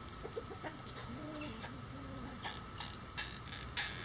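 Mille Fleur d'Uccle bantam hen clucking softly in a few low, arched notes, followed in the second half by several short dry crackles, the loudest near the end.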